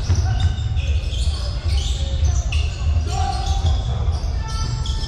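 Basketball players' sneakers squeaking repeatedly on the court during play, short high squeals one after another, over a steady low rumble in the gym.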